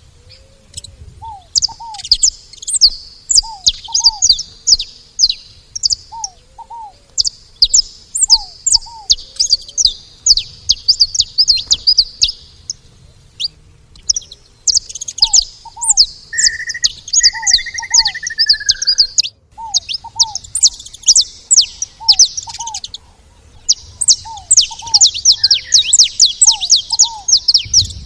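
Saffron finch chirping: rapid, high, nearly continuous chattering notes with a brief lull about halfway through. Underneath, a lower paired call repeats every couple of seconds, and a drawn-out whistle sounds about two-thirds of the way in.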